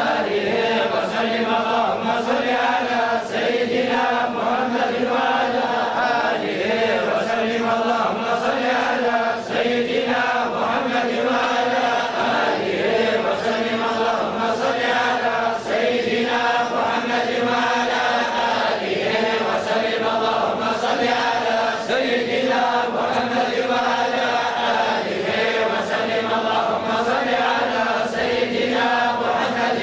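A group of men chanting together in unison without a break: a continuous Islamic devotional chant of blessings on the Prophet.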